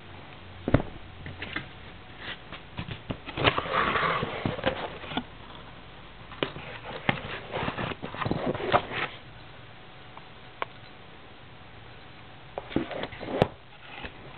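Handling noises from unboxing a paintball marker: irregular bursts of rustling and sharp clicks and taps, with quieter gaps between them and a single sharp click near the end.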